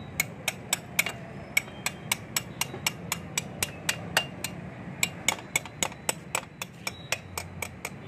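Sharp metallic clicks, about four a second with a couple of short pauses, from tool work fastening a steel bracket plate beside the motorcycle's rear wheel.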